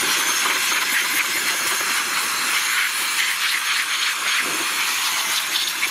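Handheld electric air blower (soufflette) running steadily, an even loud hiss of rushing air, blowing sawdust off a mitre saw's turntable.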